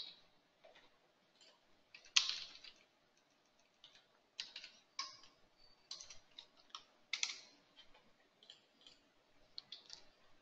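Sparse, irregular clicks of a computer keyboard and mouse: single keystrokes and button clicks with pauses between them.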